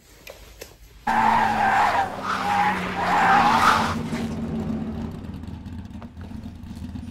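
A race car skidding, its tyres squealing over a steady engine hum. It starts suddenly about a second in, is loudest for about three seconds, then eases off.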